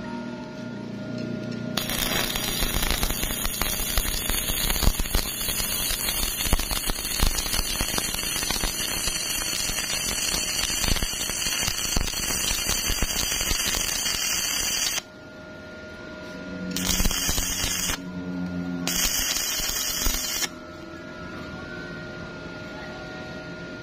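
Stick-welding arc from a 2.0 mm E6013 electrode at 100 amps laying a fillet weld on a steel T-joint: a steady, dense crackle that starts about two seconds in and runs for some thirteen seconds, then breaks off and comes back twice in short bursts before stopping about twenty seconds in. A faint steady hum sits underneath.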